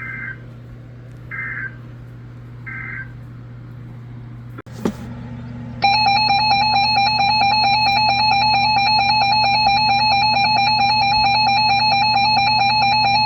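Three short bursts of Emergency Alert System digital data tones, the end-of-message code closing a warning, about a second and a half apart. A click follows, and about six seconds in a loud, steady EAS attention tone begins and holds, signalling the start of the next alert.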